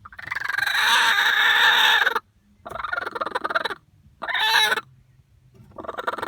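A broody chicken on its nest making loud, harsh squawking calls: one long call of about two seconds, a shorter one, a brief one, then another long call starting near the end.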